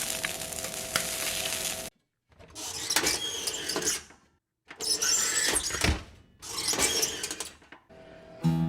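Kitchen cooking noise in four short bursts of hiss with scattered clicks and clatter, each cut off sharply by a brief silence.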